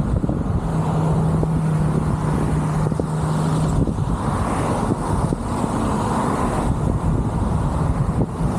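A car driving on a road, heard from a microphone on its roof: a continuous rumble of tyres and road noise with surrounding traffic, and a steady hum from about one second in to nearly four seconds in.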